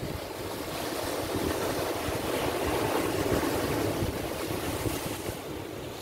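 Ocean waves breaking over a rocky shore, the rush of surf swelling through the first couple of seconds and easing off near the end. Wind buffets the microphone with a fluttering rumble underneath.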